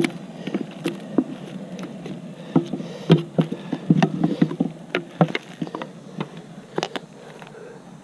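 Honeybees buzzing steadily around an opened hive, with a run of sharp knocks and clatter from hive equipment being handled, thickest in the middle few seconds.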